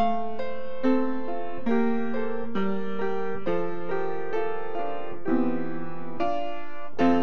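Upright piano playing a hymn tune in full chords, a new chord struck about once a second, the notes ringing on between strikes.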